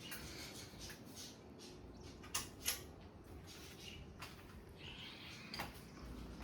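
Ceiling fan running faintly with a steady low hum, broken by two sharp clicks in quick succession about two and a half seconds in.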